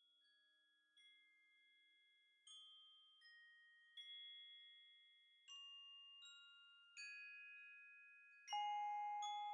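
Background music of soft bell-like chime notes, a new note about every three-quarters of a second, fading in and growing louder.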